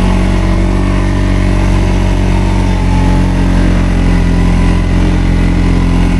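ATV engine running loud and steady at a fairly constant speed.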